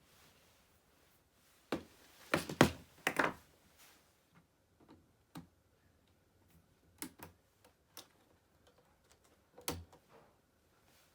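Irregular clicks and knocks of a Roomba 780 robot vacuum's parts being handled during disassembly, with a quick cluster of knocks about two to three seconds in.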